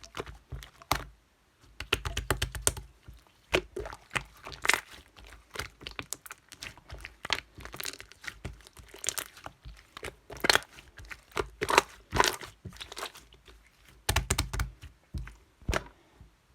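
Irregular crinkling, crackling and clicking handling noises, like something being rustled and tapped by hand, with a couple of duller thumps.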